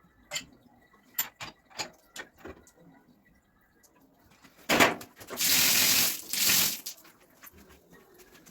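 A few light clicks and knocks, then water spraying hard from a hose hand spray gun, starting with a sudden burst about halfway through and running for about two seconds with a brief dip partway.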